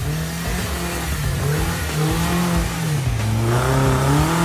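Red Suzuki Samurai 4x4's engine revving as it works through mud, its pitch rising and falling with the throttle, dipping about three seconds in and climbing again near the end.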